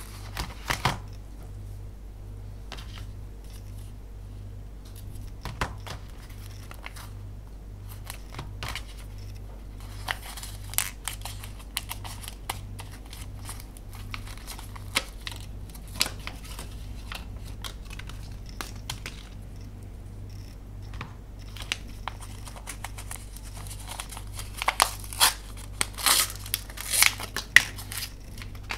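Plastic snack wrappers on mini chocolate cones crinkling and tearing as they are handled and opened, in scattered crackles that come thick and loud near the end. A steady low hum runs underneath.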